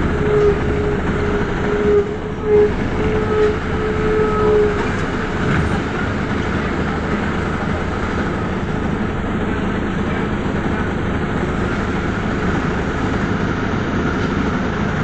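Inside an Ikarus city bus on the move: the engine and drivetrain run steadily under road and rattle noise, with a whine through the first five seconds or so.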